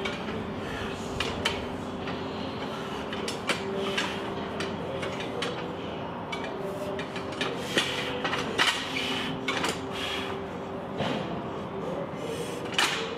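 Steel car-deadlift lever rig clanking as the rear of a pickup truck is lifted and set down in repeated reps, with sharp metal knocks every few seconds.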